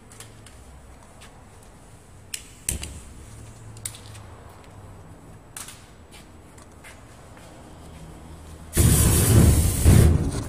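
Aerosol deodorant spray blasted into a flame and catching as a fireball: a sudden loud rush of burning spray near the end, lasting about a second and a half, after a few faint clicks.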